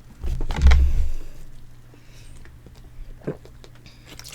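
A loud burp lasting about a second, from gas built up by chugging carbonated soda, followed by a few faint mouth clicks.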